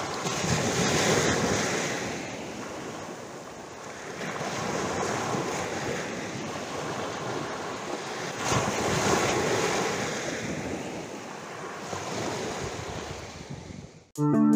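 Sea surf breaking and washing up a sandy beach, swelling and falling back every three to four seconds. It cuts off near the end as guitar music starts.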